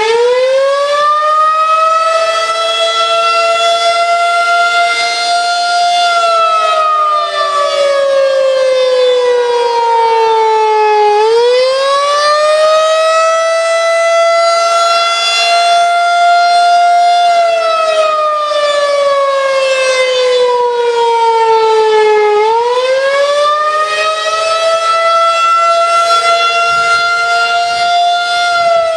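Federal Signal 2001-SRN tornado siren sounding a wail: the pitch climbs over about three seconds, holds, then slides slowly down, starting over roughly every eleven seconds.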